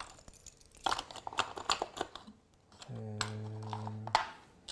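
Small hard trinkets clicking and rattling as they are rummaged through by hand, followed near the end by a steady low hum lasting about a second.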